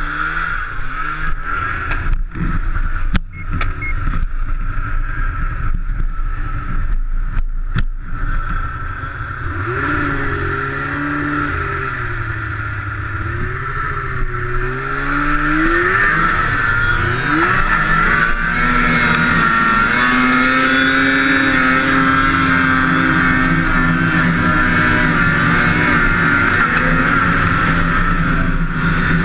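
Two-stroke snowmobile engine: a few sharp clicks at first, then the revs rise and fall several times, and from about halfway it runs louder and steady at high revs, a sustained full-throttle pull.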